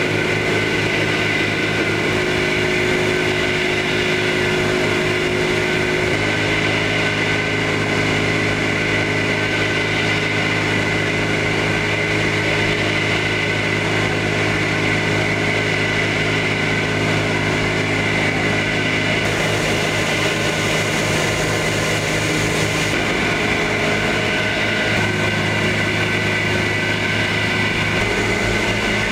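HYST milling plant running steadily as it grinds bran into flour: an even machine hum with several steady tones over a hiss.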